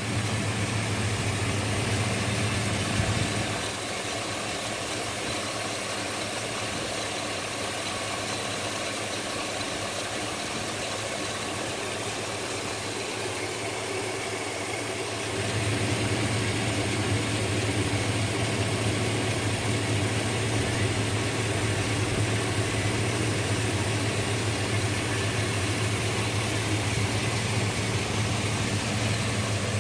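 Chevy Silverado's 5.3 L LS V8 idling steadily. From about 4 to 15 seconds in the low hum is quieter, then it comes back as before. The 385,000-mile engine runs without any unusual noise; it sounds not too bad for its mileage.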